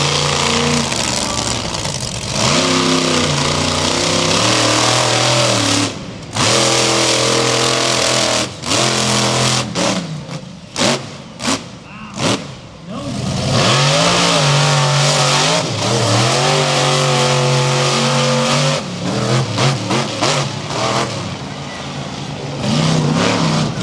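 Monster truck engine being driven hard, its pitch rising and falling with the throttle. Between about six and thirteen seconds in the throttle is chopped on and off in short blips, and then it pulls steadily again.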